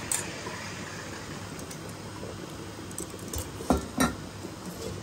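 Metal cookware clinking and knocking: a few light clinks over a steady low hiss, then two louder knocks about three and a half and four seconds in.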